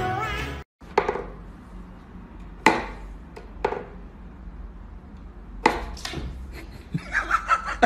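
Sharp wooden knocks from a wooden whack-a-mole cat toy box: the pegs are pushed and the cat paws at the holes. There are single knocks a second or more apart, then a quicker run of taps near the end.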